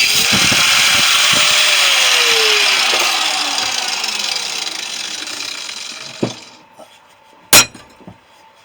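Angle grinder running at full speed, then released and spinning down, its whine falling and fading over a few seconds. A few sharp metallic clanks follow near the end.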